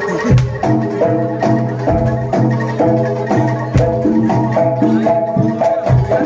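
Jaranan music played live by a Javanese gamelan ensemble: metallophones hammer a quick repeated melody of short ringing notes, a few per second, over hand-drum strikes and a low sustained tone.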